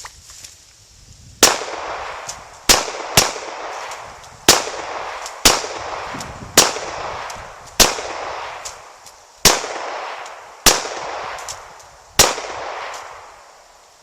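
Glock 21 .45 ACP pistol fired ten times at uneven intervals of roughly a second, two shots coming close together early on, each sharp report trailing off in a ringing echo.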